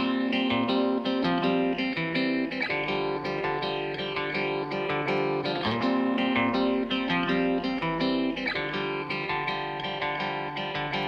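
Background music led by a plucked guitar, notes changing steadily.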